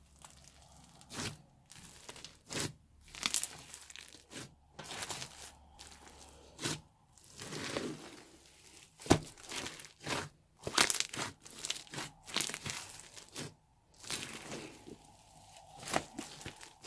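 Hands squishing, pressing and stretching sticky slime mixed with foam bricks and play-dough, giving irregular crackles, pops and wet squishes. A sharp snap about nine seconds in is the loudest.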